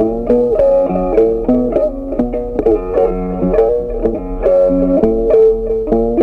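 Background music: a plucked string melody, its notes changing several times a second.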